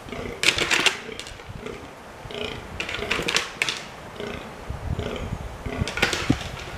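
Two fallow deer bucks fighting in the rut, their palmate antlers clashing and rattling together. The rattling comes in three bouts of rapid clicks: about half a second in, around three seconds in, and near the end.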